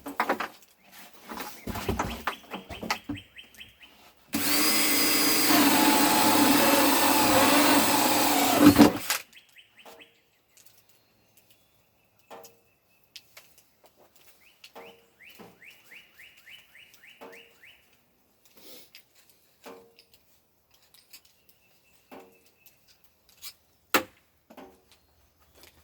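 A DeWalt cordless drill runs steadily for about five seconds, starting a few seconds in, drilling a hole. Afterwards come small scattered clicks and knocks, with birds chirping.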